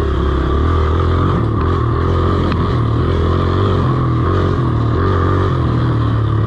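Dirt bike engine heard on board as the bike is ridden, its pitch stepping up and down as the throttle is opened and closed.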